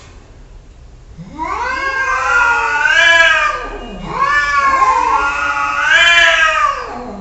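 A cat giving two long, drawn-out meows, each rising and then falling in pitch; the first starts about a second in, the second follows almost at once.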